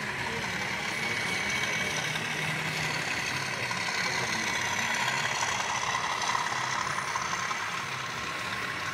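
HO-scale model diesel locomotive and its passenger coaches running along the track: a steady whirr of motor and wheels on rail with a faint whine. It gets a little louder about five to six seconds in as the train passes close.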